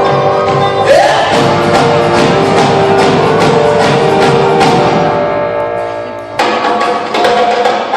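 Live band music at full volume, with regular drum hits under sustained instrument notes; the sound thins out briefly about six seconds in, then the full band comes back in.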